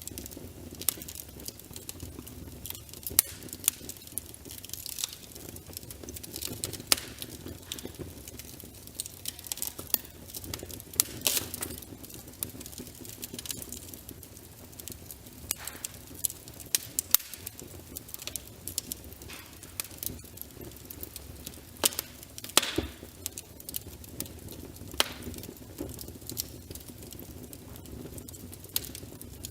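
Wood fire crackling, with irregular sharp pops and snaps over a low, steady rumble of the flames.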